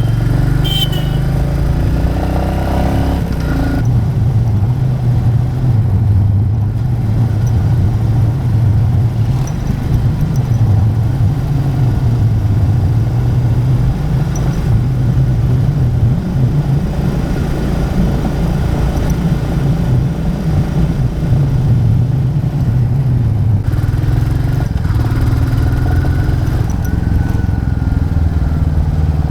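Royal Enfield Classic 350's single-cylinder engine running steadily under way, with wind and road noise.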